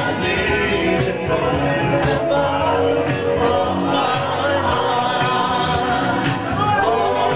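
Live music with singing and a steady beat, played loud over the boat's sound system.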